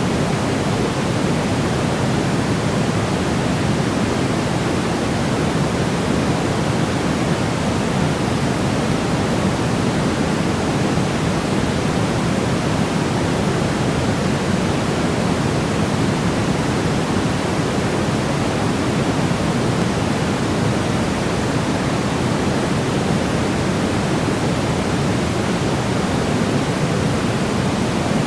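Steady synthetic noise, weighted toward the low end like pink noise: an even, unchanging hiss meant as a baby-sleep sound.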